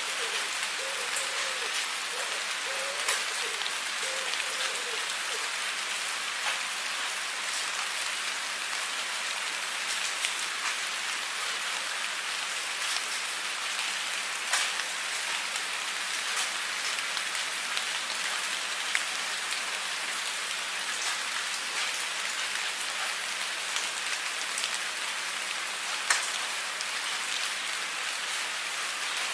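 Steady rain falling, an even hiss of drops, with now and then a single louder drop or splash striking close by.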